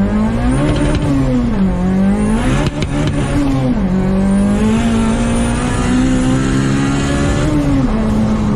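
Boosted Honda engine revving hard, its pitch climbing and falling several times, then settling into a long slow climb before dropping near the end. A thin high whine rides above the engine note during the climbs.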